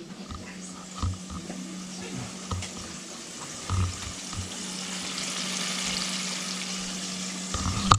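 Food frying in hot oil in a pan: a steady sizzling hiss that swells through the middle, over a low steady hum, with a few soft knocks.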